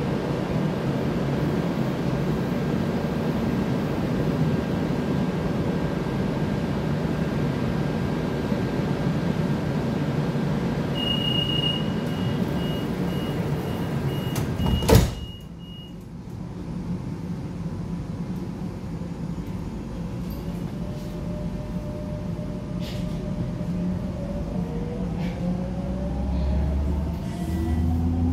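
Madrid Metro Line 12 train standing at a platform with its doors open and a steady hum. About 11 s in a high door-closing warning beep sounds, and about 15 s in the sliding doors shut with a sharp thump. Near the end the train pulls away, its motor whine rising in pitch over a low rumble.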